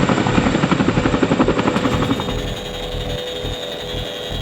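Boeing CH-47 Chinook helicopter's rotors making a fast, even thumping over a steady rumble, with a constant high whine. The rotor pulses fade about halfway through, leaving a steadier rumble.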